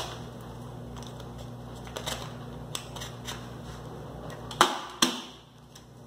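A sheet of vinyl being handled and slid out of an MVSK800 vinyl cutting plotter: light rustling and scattered small clicks over a steady low hum. Two sharp clicks come about four and a half and five seconds in, and the hum drops away after the first.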